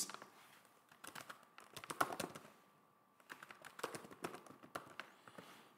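Faint computer keyboard typing: two runs of quick keystrokes with a short pause about three seconds in.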